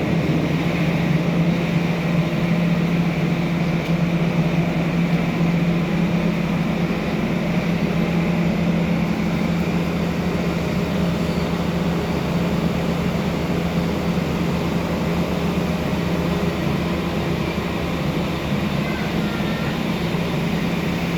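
A TLK passenger train running past, a steady loud noise with a constant low hum.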